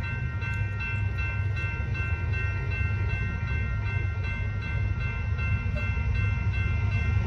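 Railroad grade-crossing warning bells ringing steadily as the crossing gates lower, over a low rumble.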